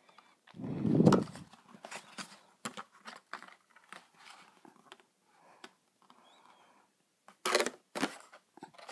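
Cardboard packaging of a disposable camera being handled: scattered rustles, crinkles and small clicks, with a dull thump about a second in and two short louder rustles near the end.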